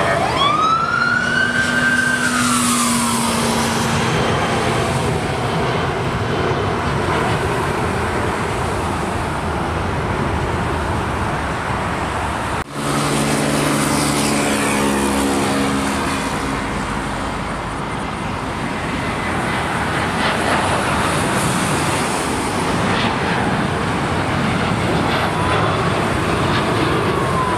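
Jet airliner engines at takeoff power during climb-out, a steady loud roar with a brief dropout about halfway through. A siren wails slowly up and down over it near the start and again near the end.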